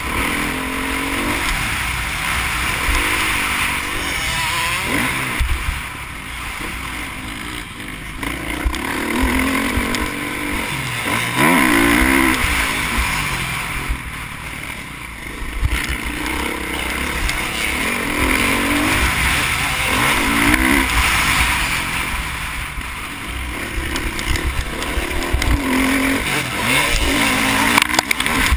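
Motocross bike engine revving hard and dropping back over and over as the rider shifts, accelerates and brakes around a dirt track, with wind buffeting the helmet-mounted microphone.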